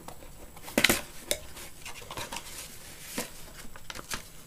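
A cardboard shipping box being opened by hand: a sharp clatter of cardboard about a second in, then scattered taps and rustling as the flaps are folded back and a printed paper sheet is lifted out.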